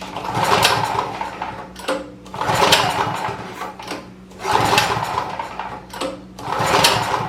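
Champion 4000-watt generator's small engine cranked over four times in a row without firing, on choke with the fuel on. The owner suspects stale, foul-smelling gasoline, a fuel problem.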